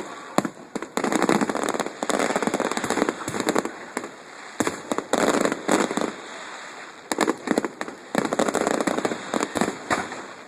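Fireworks going off: several dense bursts of rapid crackling bangs, each lasting a second or two, with short lulls between.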